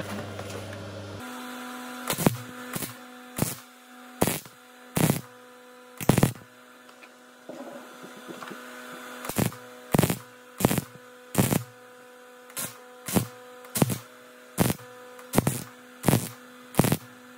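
ESAB 215ic MIG welder trigger-welding holes shut in a thin 16-gauge steel drum: a string of brief crackling arc bursts, one per trigger pull, about one or two a second with a short pause in the middle, each tack left to cool before the next. A steady hum runs underneath.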